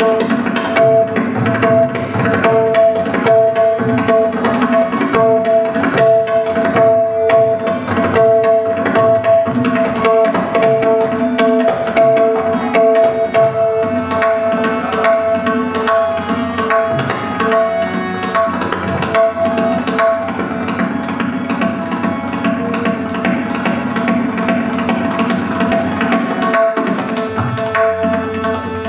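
Tabla solo: rapid, dense strokes on the dayan and bass bayan, over a harmonium holding a repeating lehra melody.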